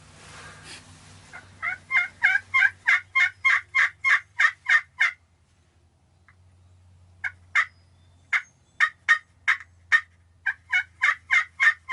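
Turkey yelping: a run of about a dozen short, evenly spaced yelps, a pause of about two seconds, then a second run of about a dozen more.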